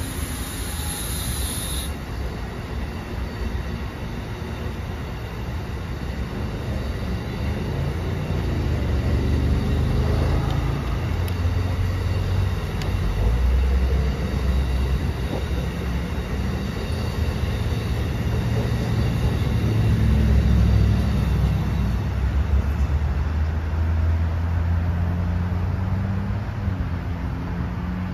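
Amtrak passenger train rolling along the track, a continuous rumble of wheels and cars on the rails that grows louder towards the middle.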